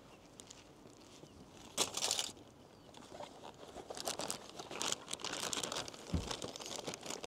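Sandwich wrapping crinkling and rustling as it is unwrapped by hand: a short burst of crinkling about two seconds in, then a run of small crackles, with a soft low thump a little after six seconds.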